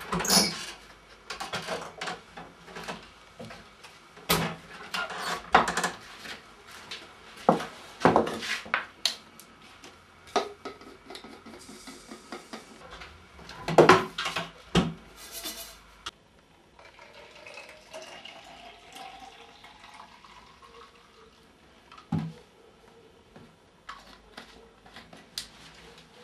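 Household kitchenware being handled: a run of knocks and clinks as cups, pots and tins are picked up and set down, thinning out about two-thirds of the way through, with one more knock near the end.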